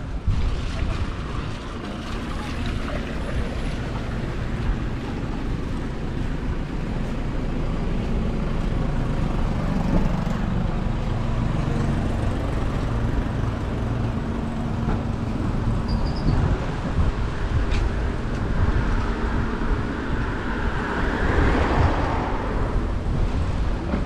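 Road traffic: a steady low engine hum through the first half, then a vehicle passing close by, swelling and fading a little before the end.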